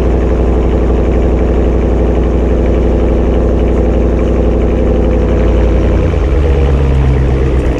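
2020 Ram 1500 pickup with a Mopar cat-back exhaust idling just after a cold start, heard loud and steady at the tailpipe. Its note changes about six seconds in.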